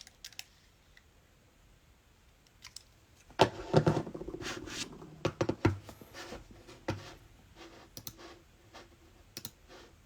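A string of sharp clicks and scratchy rustling from something being handled on a hard surface, busiest between about three and a half and six seconds in, then a few scattered clicks.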